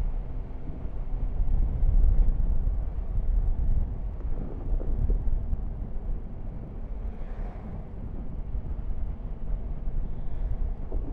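Yamaha Tracer 9 GT's three-cylinder engine running on the move, a steady low drone mixed with wind noise on the microphone.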